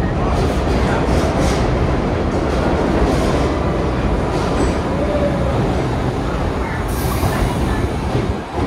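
Vintage R33/R36 subway train running on the track, a steady loud rumble of wheels and rails with a brief faint wheel squeal about five seconds in.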